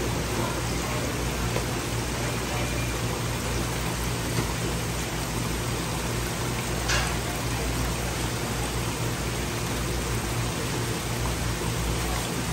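Steady rush of aerated, running water in a live seafood tank, with a low steady hum under it. One short sharp click about seven seconds in.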